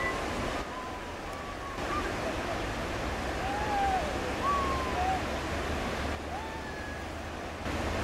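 Whitewater rapids rushing steadily. A few faint, short, high calls rise and fall over the roar of the water.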